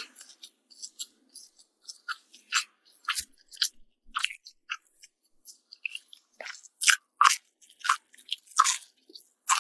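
Close-miked chewing of fried egg on toast: a run of irregular crunchy, wet mouth clicks, getting louder in the second half.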